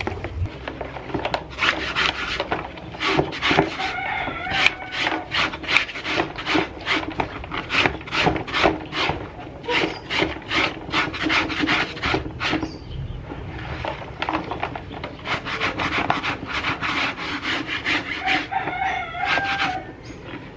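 Hand scrub brush scrubbing a wet, soapy fabric backpack in a basin of water: quick repeated strokes, several a second, with a short pause about two-thirds of the way through.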